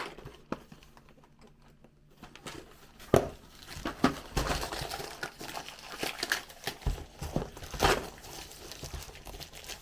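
Packaging being handled: crinkling and rustling with sharp knocks as LEGO set boxes are moved about and set down. It starts quietly, with a couple of clicks, and becomes busier after about two seconds, with the loudest knocks at about three seconds and near the end.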